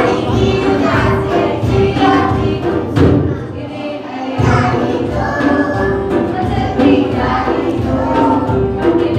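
Children's song with young children singing together as a group over backing music. There is a thump about three seconds in, and the low notes drop out for about a second just after it.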